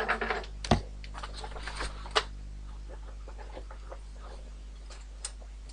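Plastic Beyblade tops and parts being handled off-camera: a burst of rustling and clattering with two sharp clicks in the first two seconds, then a single click near the end, over a steady low electrical hum.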